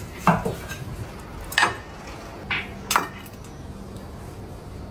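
Chinese cleaver slicing boiled pork belly and striking a wooden cutting board: three sharp knocks roughly a second and a half apart, with a fainter tap between the last two.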